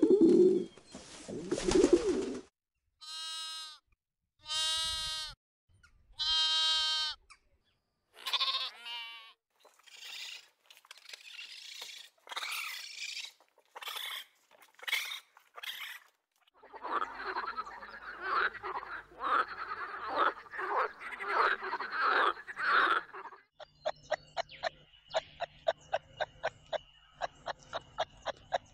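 A run of different animal calls, one after another: doves cooing low at the start, then three separate drawn-out high calls, then a stretch of squeaks and chirps. After that comes a raspy, rapid chattering, and last a fast ticking with a thin high tone.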